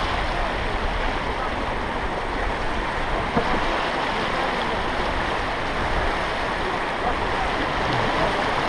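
Rushing river water: a steady, even noise of flowing and splashing water.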